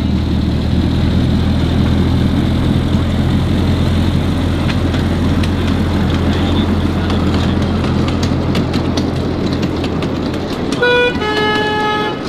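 Miniature railway locomotive hauling passenger carriages past, its engine running with a steady low hum while the wheels click over the track. Near the end its horn gives a short toot, then a longer one at a slightly lower pitch.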